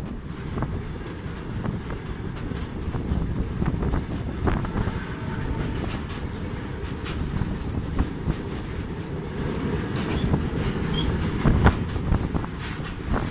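Freight train's high-sided open wagons rolling past close by: a steady low rumble of steel wheels on rail, with irregular sharp clicks as the wheels pass over the track.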